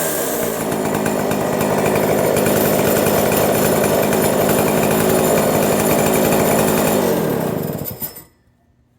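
Clone Stihl MS070 105 cc two-stroke chainsaw running at a steady speed, then shut off about eight seconds in, the engine slowing and stopping within about half a second. It is fresh out of the box with its carburetor not yet adjusted, which the owner thinks leaves it short of RPM.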